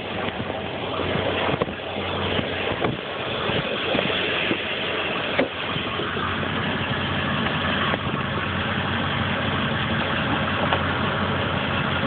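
A motor vehicle engine idling steadily, with a few light knocks over it.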